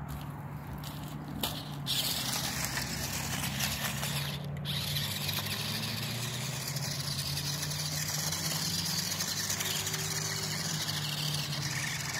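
Small electric motor and plastic gearbox of a toy-grade RC buggy whining steadily as it drives up a dirt bank, with a brief break in the whine about four seconds in.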